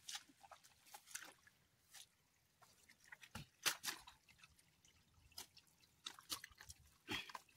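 Scattered wet splats and drips as hands scoop soft, waterlogged mud and water drips back into the puddle.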